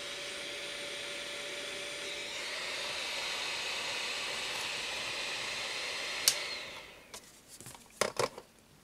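JCD 8898 rework station's hot air gun blowing: a steady rush of air from its fan, with a faint steady tone for the first couple of seconds. About six seconds in there is a sharp click and the airflow dies away within a second, followed by a few short knocks near the end as the handpiece is set into its holder.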